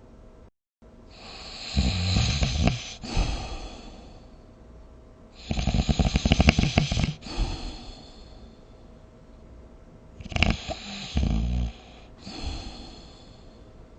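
A person snoring in sleep: several snoring breaths a few seconds apart, the loudest, near the middle, a fast fluttering rattle.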